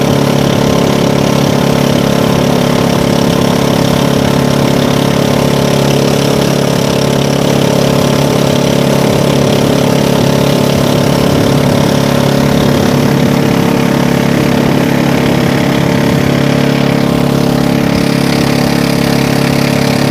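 Small pump boat's engine running steadily under way, a loud even engine note that holds unchanged throughout.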